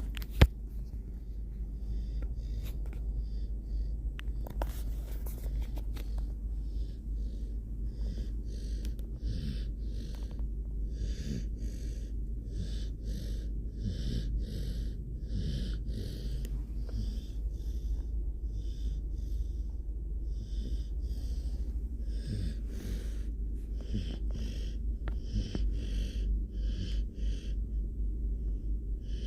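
A sleeping puppy snoring in short, quick, even breaths, over a steady low hum. There is one sharp knock near the start.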